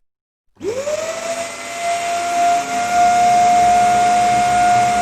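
Roly 188 wet and dry vacuum cleaner switched on: about half a second in its motor spins up with a fast-rising whine, then runs at full speed with a steady high whine over a loud rush of air.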